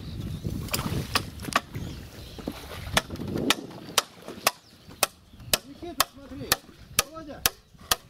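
Steady blows of a hand tool on wood, about two a second, after a few scattered knocks at the start.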